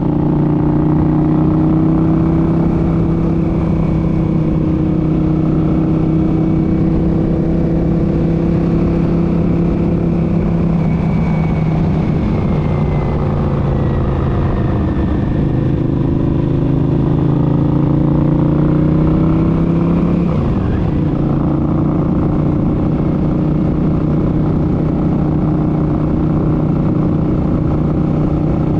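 Honda CX650 motorcycle under way, its V-twin engine running with a strong transmission whine. The pitch dips and climbs again in the middle, breaks briefly about two-thirds through, then holds steady.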